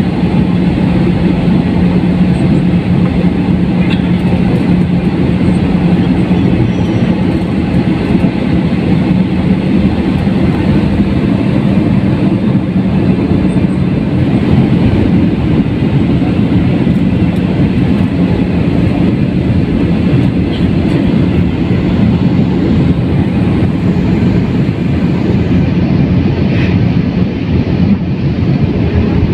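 Steady cabin noise inside a jet airliner: the turbofan engines and rushing airflow make a loud, even rumble with a constant low hum underneath.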